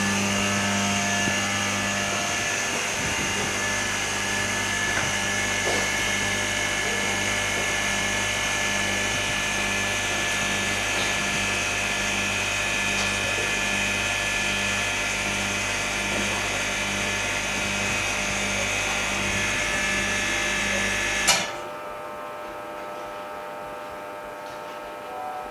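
OCA laminating and bubble-removal machine running its lamination cycle: a steady motor hum and whine with a regular low pulsing. About 21 seconds in it cuts off abruptly with a click, leaving a much quieter steady hum.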